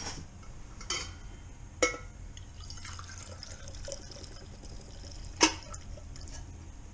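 Coffee being poured into a mug, with three sharp clinks of dishes.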